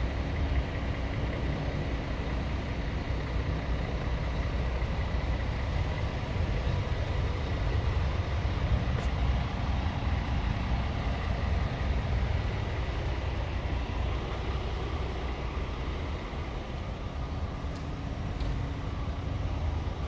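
Truck diesel engine idling steadily, a low even rumble.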